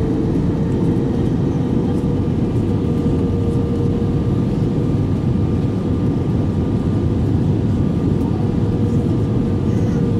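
Airbus A320 cabin noise at a window seat over the wing in flight: the steady rumble of the jet engines and airflow, with a steady hum-like tone running through it.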